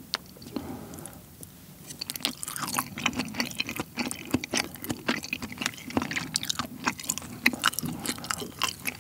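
Close-miked chewing of a mouthful of yukhoe, Korean raw beef tartare. It is soft wet mouth clicks and smacks, sparse for the first two seconds and then dense and continuous.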